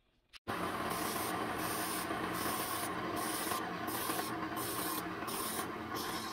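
Belt grinder running a 120-grit belt with a steel hammer head pressed against it, grinding and throwing sparks: a steady abrasive grinding with a whir, pulsing about twice a second. It starts abruptly about half a second in.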